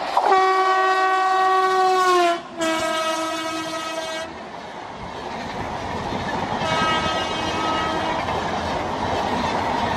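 WDG-3A diesel locomotive's horn sounding two long blasts, the pitch dropping near the end of the first and the second blast lower, as the train runs past at speed. The coaches' wheels then clatter and rumble by, with a shorter, fainter horn note about seven seconds in.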